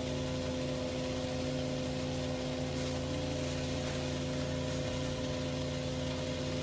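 Petrol pressure washer engine running steadily at constant speed, with the hiss of the high-pressure water spray.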